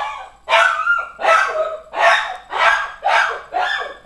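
Norwegian Elkhound crying in a rapid, steady run of short barking yelps, about seven in four seconds, many sliding down in pitch at the end. It is protesting at being shut in its kennel to sleep.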